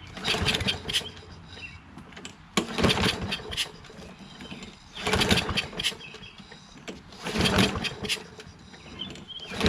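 Kohler XT675 lawn mower engine pull-started four times by its recoil starter, each pull about a second long, turning the engine over without it catching and running. It is a no-start with good compression, which the owner puts down to fuel not getting through, probably a dirty carburetor.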